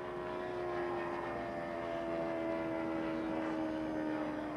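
Turbine engine of a radio-controlled scale model F-16 jet flying past, a steady tone whose pitch slowly falls.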